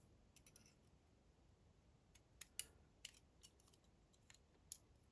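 A few faint, sharp metallic clicks and ticks, spaced irregularly, as small lock parts (driver pins and springs) are handled while a dimple lock is being taken apart. The loudest click comes about two and a half seconds in.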